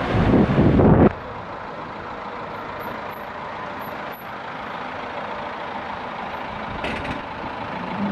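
Fiat Doblò van driving close past for about a second, then an abrupt drop to a steady, quieter hum with a few faint high chirps.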